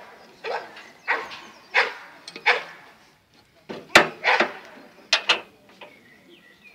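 A dog barking in a run of short, loud barks, with a single sharp crack about four seconds in.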